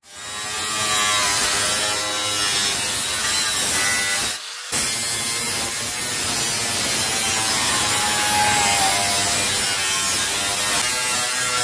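Angle grinder cutting through the sheet-steel front panel of a ZAZ 1102 Tavria, its whine wavering in pitch as the disc bites. The sound breaks off for a moment about four and a half seconds in.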